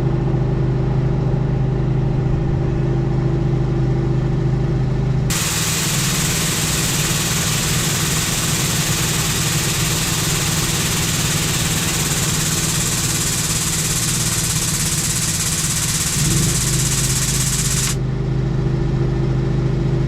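A motor running steadily with a constant low hum. About five seconds in a loud hiss starts, holds steady, and cuts off suddenly near the end, then starts again just at the close.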